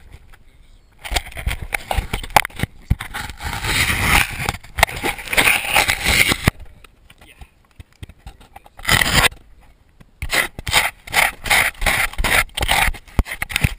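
Irregular bursts of rushing wind and scraping knocks on a GoPro's own microphone as the camera moves fast, broken by a quiet stretch a little past the middle.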